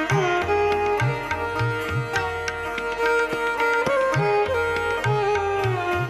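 Instrumental title music in an Indian classical style: plucked strings and held notes over a steady rhythm of low hand-drum strokes.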